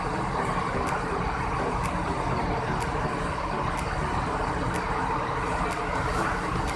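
Bus diesel engine idling steadily, with a faint high tick about once a second.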